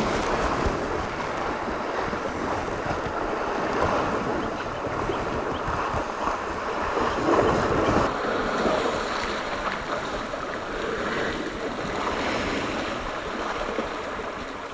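Steady splashing and sloshing of water churned up by a herd of African elephants and their calves wading and swimming.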